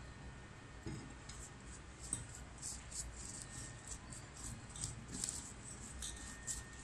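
A hand mixing spice-coated spiny gourd slices and potato sticks in a stainless steel bowl: faint, irregular squishing and clicking as the wet pieces knock against each other and the metal.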